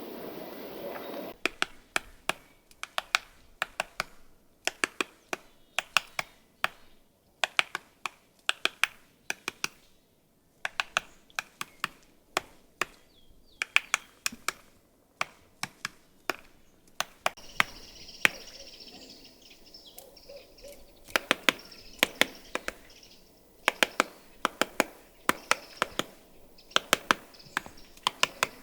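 Great spotted woodpecker hammering at a conifer cone with its bill, prying out the seeds: irregular runs of sharp, quick taps with short pauses between them.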